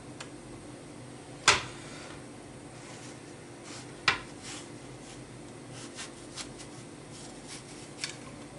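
Kitchen utensils knocking and clinking against cookware: two sharp knocks, about a second and a half in and about four seconds in, with lighter taps between, over a steady low background hum.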